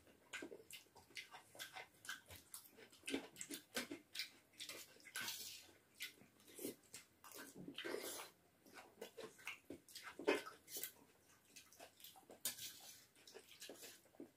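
Two people eating noodles: irregular slurping and chewing, with forks scraping and clinking on steel plates.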